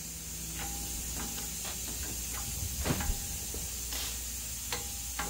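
A press bearing down on a brake booster's sheet-metal can half to push out its seal: scattered sharp clicks and creaks, about eight of them, the loudest about three seconds in, over a steady hiss. The can is flexing under the load rather than the seal giving way.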